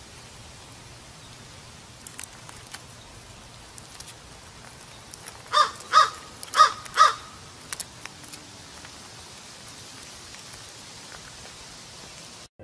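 Four short calls from an animal, in two quick pairs about half a second apart, over a steady hiss; a few faint clicks come a few seconds earlier.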